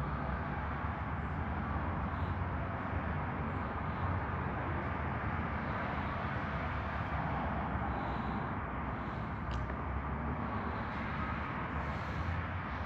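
Steady low hum and rush of a running machine, with a few faint light clicks.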